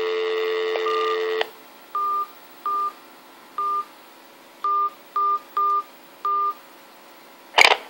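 Telephone dial tone over a PBX line, cut off as the first touch-tone (DTMF) digit sounds. It is followed by a string of eight short touch-tone beeps with uneven gaps as a number is dialed out through the line. A sharp click comes near the end.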